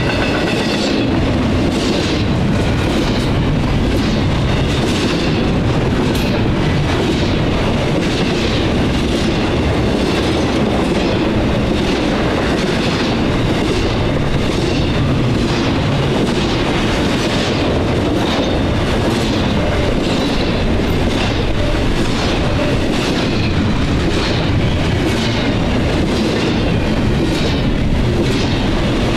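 Double-stack intermodal freight cars rolling past at track speed: a loud, steady rush of steel wheels on rail, with an even, repeating clickety-clack as the wheelsets pass.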